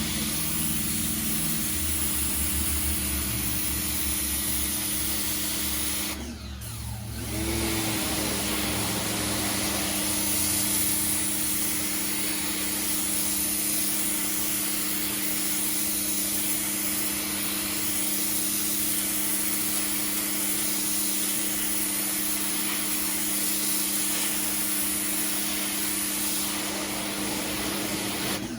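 Pressure washer running, its motor humming steadily under the hiss of the water jet blasting concrete. About six seconds in the sound briefly cuts out, then comes back at full strength.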